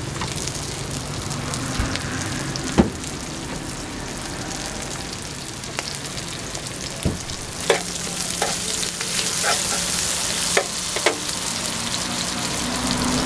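Food frying in hot oil in a pan: a steady sizzle that grows louder about nine seconds in, with several sharp clicks and taps on top of it.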